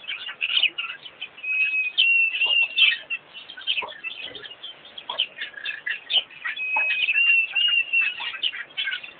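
Chorus of small birds chirping and twittering, with a clear whistled note held for about a second and a half, twice.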